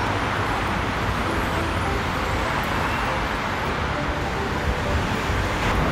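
Steady road-traffic noise: a low rumble under an even hiss, with no distinct events.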